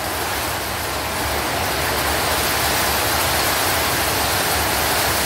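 Heavy rain falling: a steady, even hiss that swells slightly about a second and a half in.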